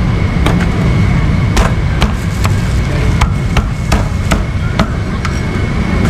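Cleaver chopping cooked meat on a chopping board: sharp, irregular strikes about two a second, over a steady low rumble.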